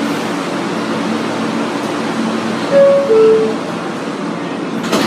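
R160 subway car's two-note door chime, a high tone falling to a lower one about three seconds in, over the steady hum of the stopped car's ventilation. A short sharp knock near the end.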